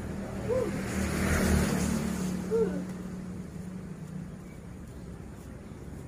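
A vehicle passing by, its sound swelling and fading over about three seconds, with two short mewing calls from a cat about two seconds apart.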